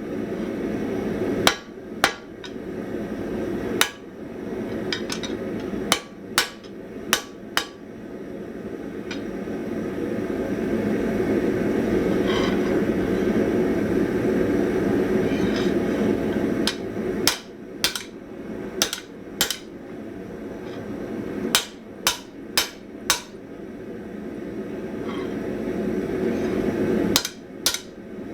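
Hand hammer blows on hot spring steel at the anvil, struck singly or in quick groups of two to four with longer pauses between, forging a chamfer along the edge of an anvil-shear blade. A steady rushing noise runs underneath throughout.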